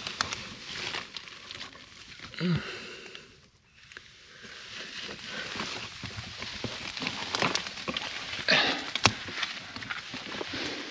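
Handling noise as a camera is pushed into a low, rubble-filled opening: rustling and scraping of dry pine needles, twigs and stones, with irregular knocks and clicks. A brief voice-like sound comes about two and a half seconds in, and the rustling is loudest near the end.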